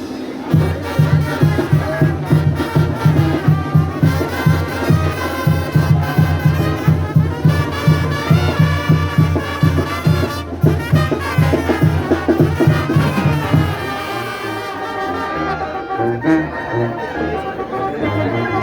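Brass band music with trumpets and trombones over a steady pulsing bass beat; the bass beat drops away about 14 seconds in and the music carries on more softly.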